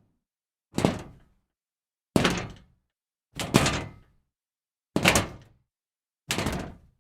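Scrap metal being kicked, five separate times: each kick is a sudden clattering crash of metal pieces that dies away within about half a second.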